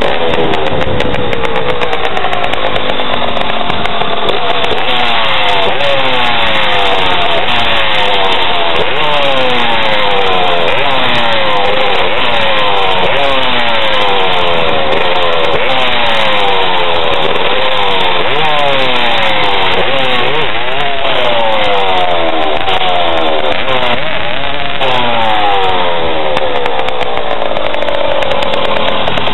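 Tuned 45cc D-5 two-stroke bicycle engine, fitted with a Mikuni 19 mm carburettor, reed and rotary valves, a ported cylinder and a homemade exhaust, running loud. It is revved over and over, its pitch climbing and dropping about once a second, and near the end it holds a higher, steadier pitch.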